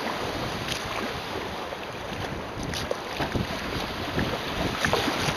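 Wind buffeting the microphone over water splashing against a sea kayak's hull, with several short splashes.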